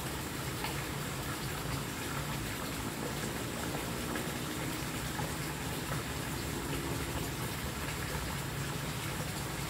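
Steady rushing of running water, even and unbroken.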